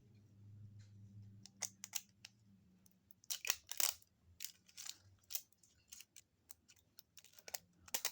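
Plastic toy packaging crinkling and tearing as a small surprise packet is handled and opened by hand: a run of short, irregular crackles and rustles, loudest near the middle, over a faint low hum.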